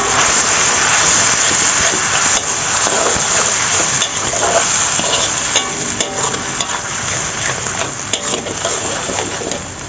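Spice paste frying in hot oil in a wok, a steady sizzle, with a spatula scraping and clicking against the pan as it is stirred. The sizzle eases a little in the second half.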